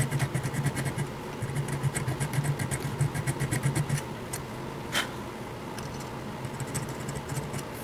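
Needle file rasping back and forth on the screw post of a diecast metal toy van body, in quick strokes about four a second. The filing stops about four seconds in, a single sharp click follows, and lighter strokes resume near the end.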